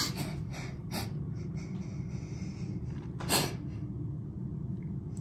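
Quiet room tone with a steady low hum, broken by a few faint short breaths near the start and one louder breath about three seconds in.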